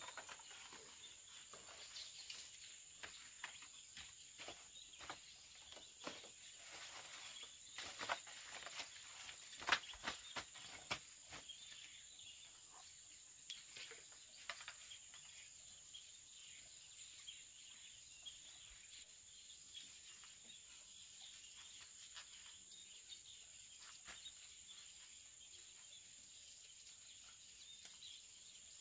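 Insects shrilling in a steady, high continuous tone, with scattered sharp clicks and knocks of handling or movement, mostly in the first half.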